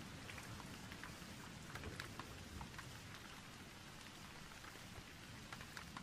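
Faint rain falling steadily, with scattered individual drops standing out from the hiss.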